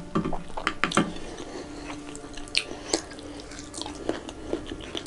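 Close-up wet chewing and mouth clicks of someone eating rice, daal and vegetables by hand, with scattered short smacks and crackles.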